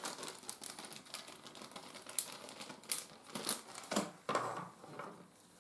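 Small plastic bag crinkling and rustling as it is handled, with irregular light clicks and taps as things are set down on a wooden table.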